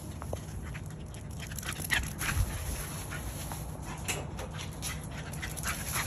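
English Staffordshire Bull Terrier running fast laps on a wet lawn with the zoomies: quick, irregular scuffs and rustles of her paws on the grass, over a steady low rumble.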